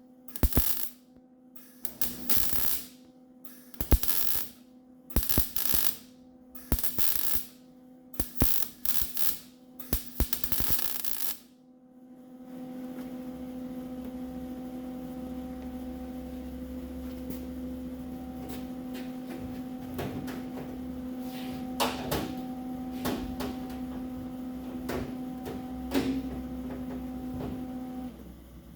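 Wire-feed (MIG) welder laying short stitch welds to fill small holes in a steel fender: about ten short bursts with pauses between them in the first twelve seconds. After that a steady hum with scattered ticks runs until it stops shortly before the end.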